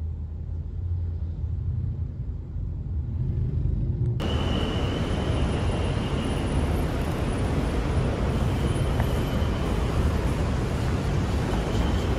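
Low, muffled road rumble inside a car's cabin moving slowly in traffic. About four seconds in it cuts abruptly to a louder, steady rushing noise, with a faint high tone now and then.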